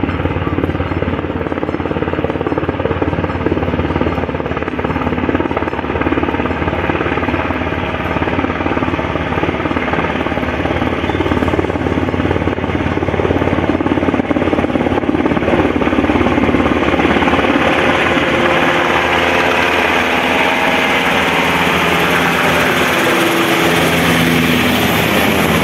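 Sikorsky UH-60L Black Hawk helicopter, with twin General Electric T700 turboshaft engines, flying in and coming low overhead: a fast rotor beat with turbine whine. It grows louder and brighter in the second half as it nears, and its tones slide downward near the end.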